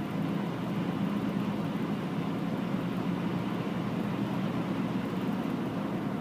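Steady road and engine noise inside a moving car's cabin at highway speed, a low, even rumble.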